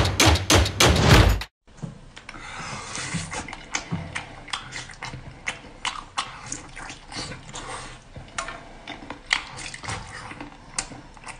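Drum-heavy music for about the first second and a half, then cut off sharply. After it, close-up chewing and lip-smacking from a man eating braised meat: many small, irregular wet clicks.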